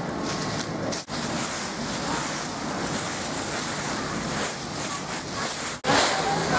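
Rubber wellington boots kicking and shuffling through deep, dry fallen leaves: a continuous dense rustling and crunching, which cuts out abruptly for a moment twice, about a second in and near the end.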